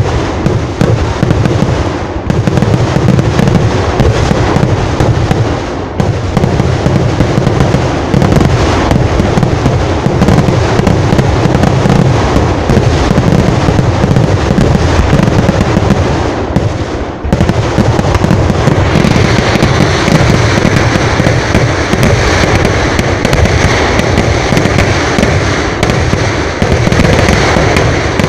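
Dense barrage of firecrackers and fireworks going off in rapid, unbroken succession, loud and crackling. About two-thirds of the way through, a steady hiss joins in over the bangs.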